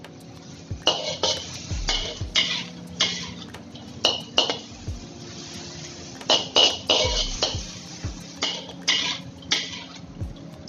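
A metal spatula scraping and clanking against a metal wok as pork and shredded vegetables are stir-fried, in many irregular strokes with a brief metallic ring.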